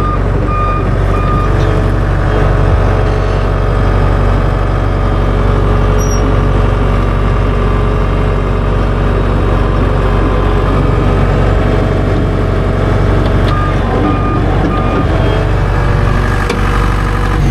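John Deere 550H crawler dozer's diesel engine running steadily as the machine is driven, its reverse alarm beeping for about the first second and again briefly near the end.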